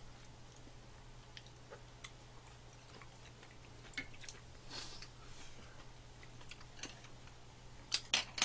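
Quiet eating sounds: faint chewing and scattered small clicks of chopsticks and a spoon against bowls, with two sharper clicks near the end. A steady low hum runs underneath.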